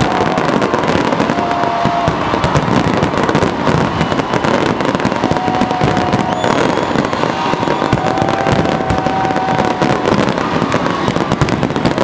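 Fireworks display: a dense, continuous barrage of shell bursts and crackling, with a few brief whistling tones over it.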